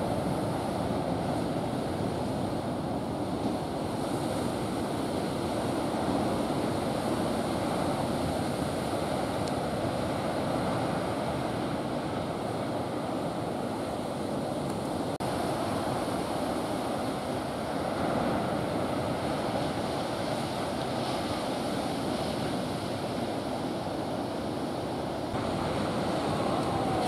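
Ocean surf breaking and washing in: a steady rushing noise that swells a little a couple of times.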